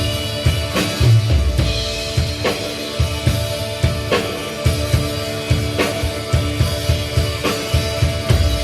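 Live band music: a drum kit keeps a steady beat, about one strike every 0.8 seconds, under sustained chords.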